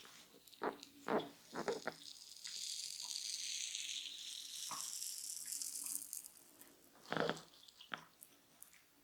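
Hands massaging a head: a few quick slaps or pats, then several seconds of brisk rubbing hiss, then one louder slap a little after seven seconds.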